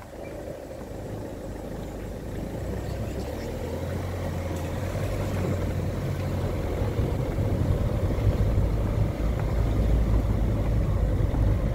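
Car driving, its engine and road rumble heard from inside the cabin, a steady low drone that grows louder over the first eight seconds or so.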